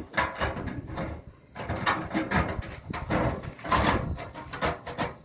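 Cut edge of a steel drum being bent over with pliers: a run of irregular metal scrapes, creaks and knocks.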